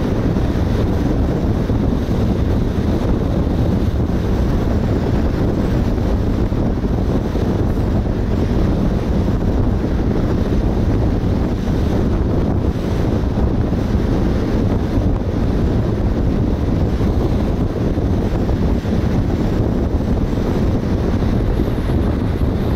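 Steady rumbling wind buffeting on the microphone, mixed with road and tyre noise, from a car driving at highway speed.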